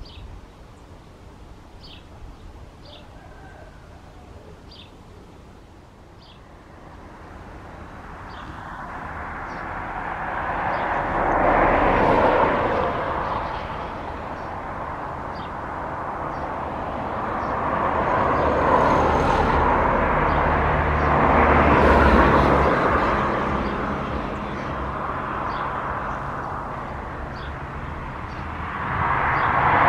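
Airbus A319 jet engines on landing approach, a rushing roar that builds from quiet about seven seconds in and swells and fades several times as the airliner nears. A few short high chirps sound before the jet noise builds.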